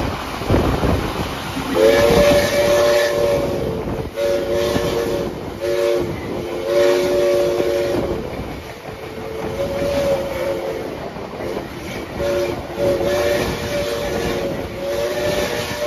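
Steam locomotive's chime whistle sounding three notes together in a long string of blasts, some long and some short toots, from about two seconds in. Underneath runs the rumble and rail clatter of the moving train.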